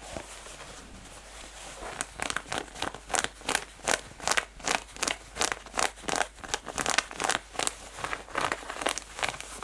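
Natural fingernails scratching rough, textured denim jeans fabric fast and hard: a quieter, fainter rasp for about two seconds, then a rapid run of sharp scratching strokes, about four a second.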